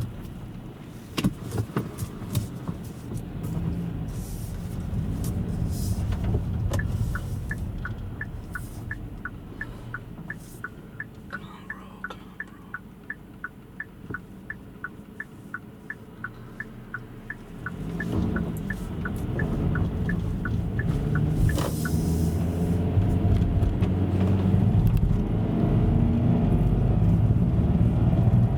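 Car engine and road noise heard from inside a moving vehicle. For several seconds in the middle there is a rapid regular ticking, about three a second. Then the engine grows louder from about two-thirds of the way in as the car accelerates, its pitch rising near the end.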